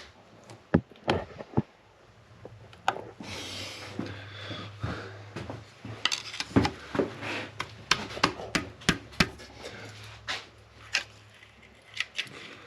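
Scattered metal clicks and knocks with a short scrape, as the split halves of a spun connecting-rod bearing are pried and worked out of a 360 small-block Mopar's rod end by hand.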